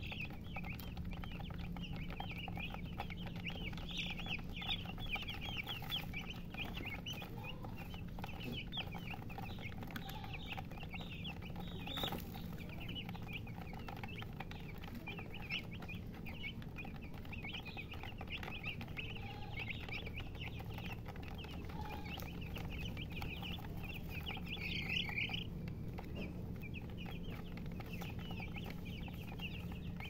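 A flock of young chicks peeping continuously, many short high-pitched chirps overlapping several times a second, with a louder flurry of cheeps near the end.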